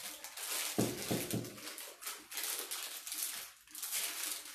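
Plastic piping bag crinkling and rustling in irregular bursts as it is handled and twisted. A brief low voiced sound about a second in.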